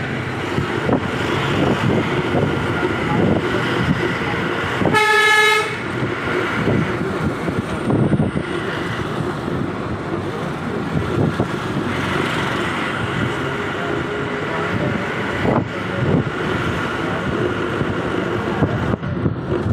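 Steady road and engine noise heard from inside a moving car, with one short vehicle horn honk about five seconds in.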